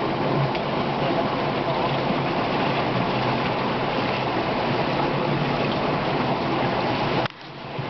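Steady rush of flowing floodwater. It drops out abruptly for about half a second near the end.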